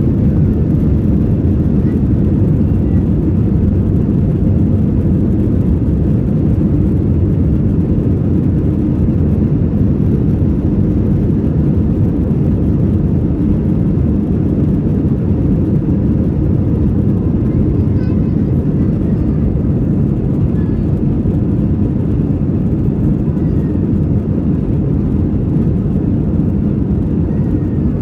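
Steady low rumble of an airliner's jet engines and its rolling on the ground, heard from inside the passenger cabin as the plane moves along the runway for takeoff.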